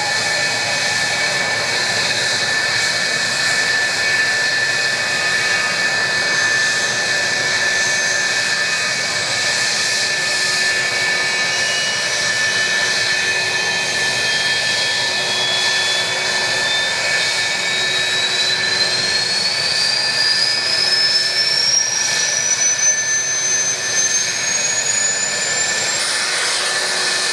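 F-4 Phantom's J79 turbojet engines running on the ground, giving a steady high whine. A second whine rises smoothly and steadily in pitch through the second half as an engine spools up.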